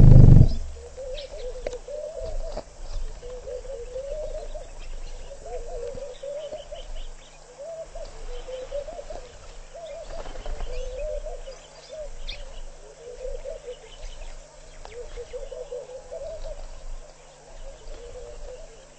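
Pond birds calling continuously in short, rolling, wavering low notes, with faint high chirps above. A loud close rustle right at the start, and a few soft clicks, come from the pied kingfisher's feathers brushing against the microphone as it preens.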